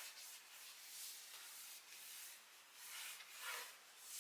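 Cloth wiping a laptop's casing, faint repeated rubbing strokes as the alcohol-dampened cloth is drawn back and forth.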